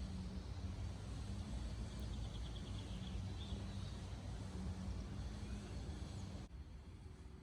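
Woodland outdoor ambience with a low steady rumble, and a short high bird trill about two to three seconds in. The background drops quieter near the end.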